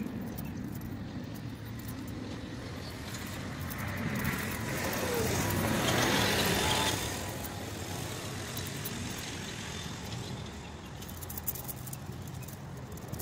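A vehicle passing by, swelling and fading over about three seconds in the middle, over a steady low outdoor rumble.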